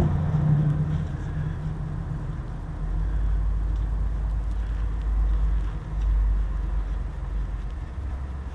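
Old gear oil draining from a manual gearbox's drain hole into a catch pan, over a steady low rumble.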